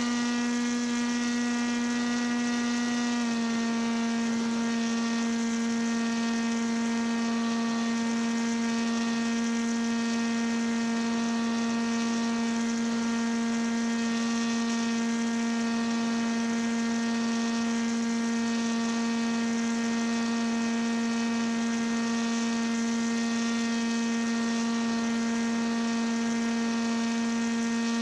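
Paramotor engine and propeller running at a steady cruise throttle, giving a constant high-pitched hum. The pitch drops slightly about three seconds in and then holds steady.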